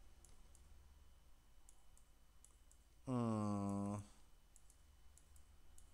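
Scattered faint clicks of a computer mouse. About three seconds in, a man's voice holds one low, steady wordless hum for about a second.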